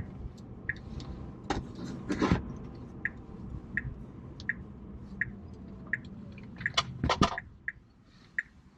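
Tesla Model 3 turn-signal indicator ticking evenly, about one tick every three-quarters of a second, over low cabin road noise, with a few louder knocks, the loudest about seven seconds in.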